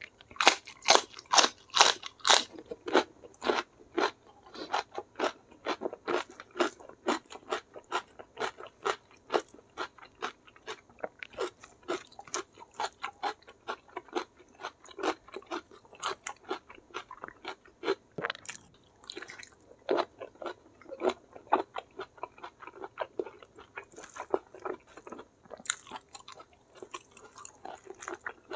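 Crisp crunching of a raw winged bean being bitten and chewed, loudest in the first few seconds, then steady chewing at about three strokes a second.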